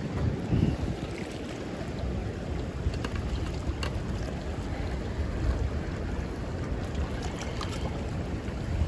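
Steady rush of turbulent water pouring out below a dam spillway, with wind noise rumbling on the microphone.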